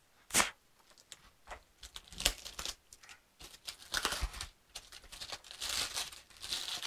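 Hole saw kit packaging being wrestled and torn open by hand: irregular bursts of crinkling and tearing, with a sharp crack about half a second in.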